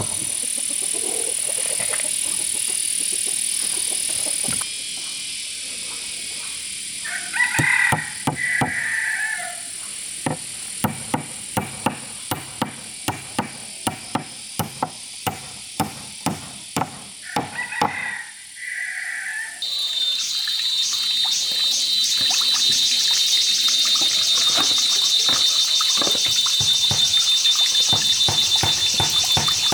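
A run of about fifteen sharp knocks, evenly spaced at roughly two a second, in the middle of the stretch, with a few short chirping calls just before. A steady high hiss runs under the start, and a high buzzing hiss with a fast pulse takes over near the end.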